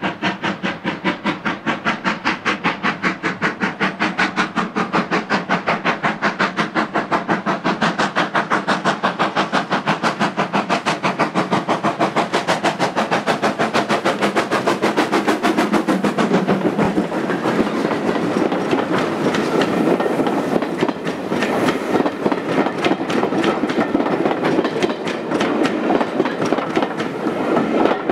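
GWR Modified Hall 4-6-0 No. 6990's two-cylinder exhaust beating hard and evenly as it accelerates a passenger train, the beats coming quicker. About halfway through the beats give way to the coaches' wheels clattering over rail joints and pointwork as the train passes.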